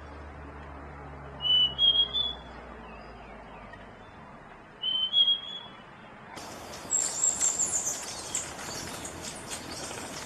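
Wild birds calling: two short whistled phrases a few seconds apart, then, after about six seconds, a higher, thinner chirping with a rapid run of ticks takes over.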